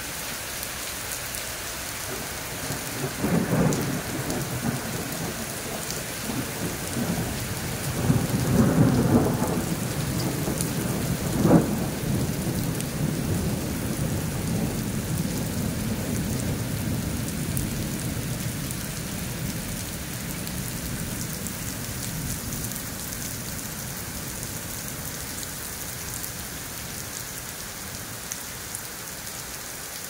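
Heavy rain falling steadily on a birch forest, leaves and grass, with thunder. Low rumbles come in the first third, a sharp crack follows, and then a long rolling rumble slowly fades away.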